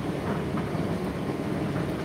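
Indesit IDC8T3 condenser tumble dryer running mid-cycle: a steady rumble of the turning drum and fan, with faint irregular taps.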